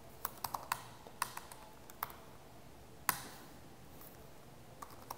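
Scattered computer keyboard keystrokes: a quick run of clicks in the first second, a few more around one and two seconds in, one sharp, loudest keystroke about three seconds in, and a couple more near the end.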